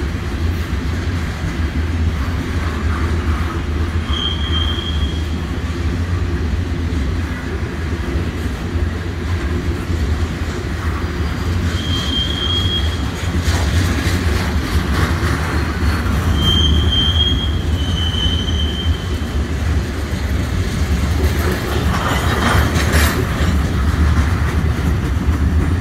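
Covered hopper cars of a Canpotex potash freight train rolling past, with a steady low rumble of wheels on rail. Several short, high-pitched wheel squeals come through along the way.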